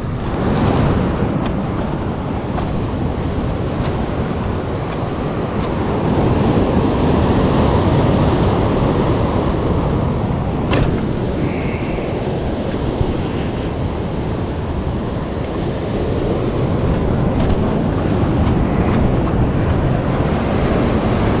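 Sea surf washing over shore rocks, with wind buffeting the microphone; the wash swells louder about six seconds in and eases off a few seconds later.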